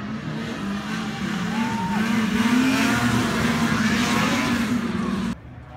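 Racing snowmobiles under full throttle, a steady high engine buzz that grows louder as they come nearer, then cuts off suddenly near the end.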